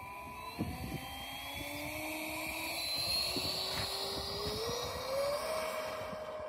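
Electric ducted fan of a 70mm 3D-printed BAE Hawk model jet spooling up for its takeoff run: a whine that climbs steadily in pitch and levels off near the end.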